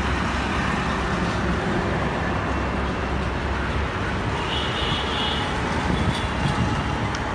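Steady road traffic noise from cars and trucks passing on a busy road, with a brief high steady tone a little over halfway through.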